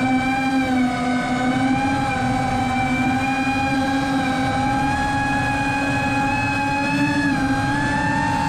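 Electric motors of the Apex RC aircraft whining steadily in flight, the pitch drifting slowly higher with a small step up near the end.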